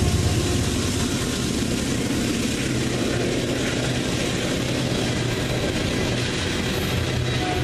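Loaded coal train passing at speed: a steady rumble and rush of wheels on rail with a low, even engine drone.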